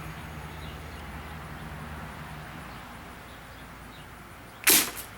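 A homemade slingshot rifle with super long (about 3.5-foot) rubber bands fires once near the end: a single loud, sharp snap as the bands are released and launch the ball.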